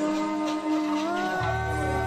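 Background music without vocals: held synth-like chords that shift, with a steady bass line entering about halfway through.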